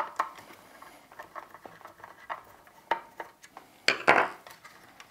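Screwdriver turning screws out of an aluminium blind head rail: scattered light metallic clicks and clinks, with a few sharper ones about three and four seconds in.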